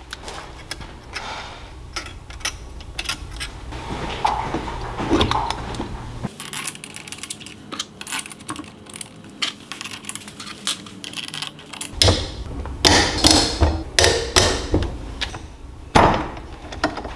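Metal clinks and light knocks of hand tools and engine parts handled on a workbench during a small four-stroke engine rebuild. The clicks come close together in the last few seconds.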